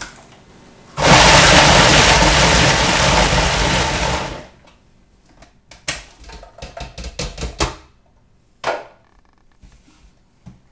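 A food processor motor runs for about three seconds, its S blade chopping a bowl of tomato salsa, then stops. Then comes a run of plastic clicks and knocks as the lid and bowl are twisted free, and one more knock a second later.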